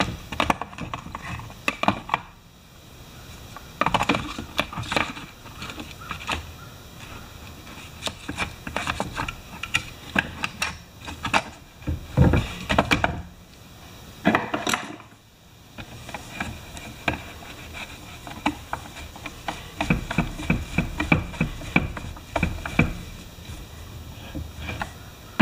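Saw chain on a Pioneer Partner 500 chainsaw's bar being worked by a gloved hand, the links clicking and rattling in irregular runs with short pauses.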